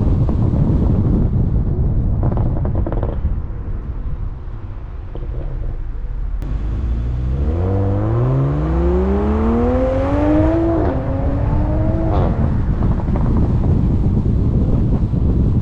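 Low rumble of wind buffeting the microphone, then about halfway through the Supra's turbocharged B58 straight-six accelerates hard, its pitch rising steadily. The pitch falls sharply once at an upshift, climbs again briefly and fades.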